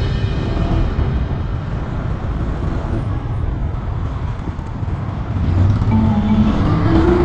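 Road vehicle noise: a steady low rumble of traffic. Background music fades back in about six seconds in.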